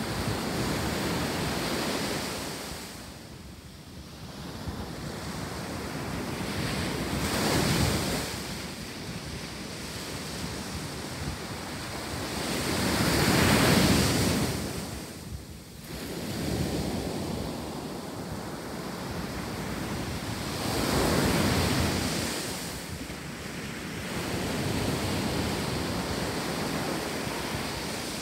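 Ocean surf breaking on a beach, rising and falling in surges every six or seven seconds, loudest about halfway through, with wind on the microphone.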